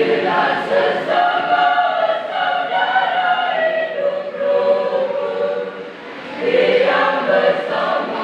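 Church choir singing in parts, holding long notes; one phrase fades about six seconds in and a new one begins.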